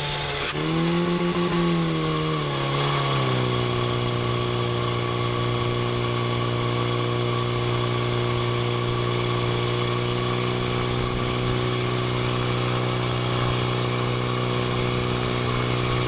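Portable fire pump's small petrol engine running flat out. It climbs in pitch, falls back about three seconds in, then holds a steady high speed under load while it pumps water out through the attack hoses to the spray nozzles.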